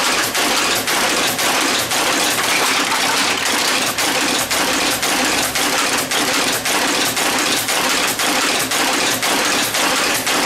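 Monotype hot-metal type caster running as it casts type, its mechanism clacking in an even rhythm of about two strokes a second over a constant mechanical din.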